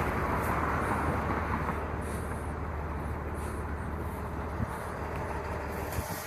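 Steady running hum of a vehicle engine with road or cab noise, with a few light knocks and rattles.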